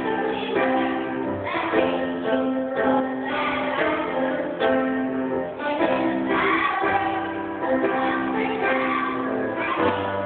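A group of young children singing together in unison with instrumental accompaniment, the notes held and changing in a steady song rhythm.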